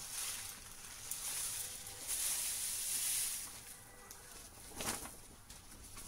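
A sheet of paper rustling as ground coffee slides off it and patters into a stainless-steel cone filter, loudest about two to three seconds in and dying away after about three and a half seconds, with a few faint ticks near the end.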